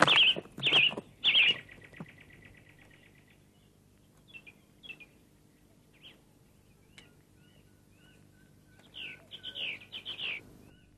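Songbirds calling: a few loud, curved chirps and then a fast trill in the first two seconds, scattered faint chirps after that, and another quick run of chirps near the end.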